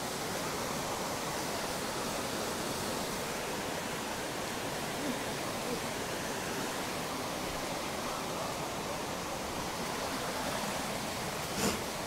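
Steady rush of a small stream spilling over rocky cascades, with a single knock near the end.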